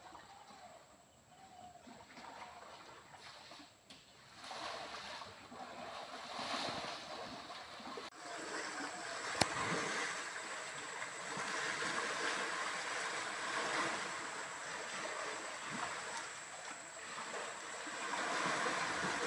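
Water splashing and sloshing as two elephants wrestle and roll in a muddy stream, over the stream's steady flow. It grows louder after a few seconds, and there is a single sharp click about nine and a half seconds in.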